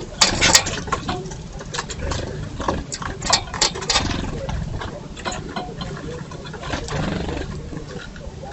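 Birds at a feeder: irregular taps, clicks and rustles, with a loud scuffle just after the start and another flurry about three to four seconds in, over a low rumble.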